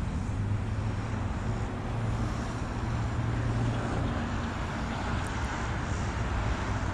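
Classic muscle car's engine running as the car is driven, a steady low engine note over road noise.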